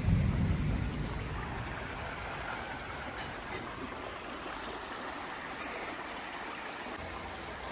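Steady rushing of a stream's flowing water, with a brief low rumble in the first second.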